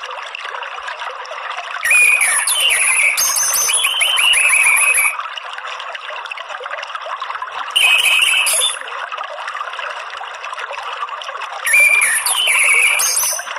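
Orange-headed thrush twittering in three bursts of one to three seconds each, over a steady trickle of running water.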